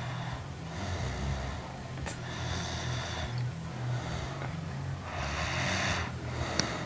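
A person snoring heavily in deep sleep: a low rasping drone with about three long noisy breaths, the strongest about five seconds in.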